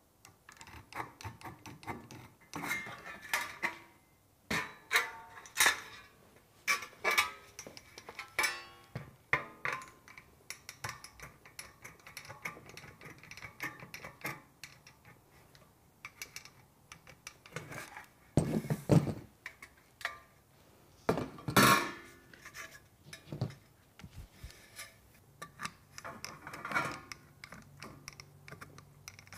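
Aviation tin snips cutting painted sheet-metal Z closure trim: irregular runs of sharp metallic snips and crunches. There are two louder metallic clanks about two-thirds of the way through.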